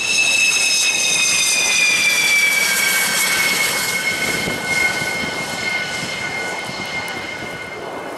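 Dassault Rafale's twin M88 turbofan engines whining as the jet rolls past on the runway: a high whine with overtones that falls steadily in pitch as it passes and moves away, loudest early and slowly fading.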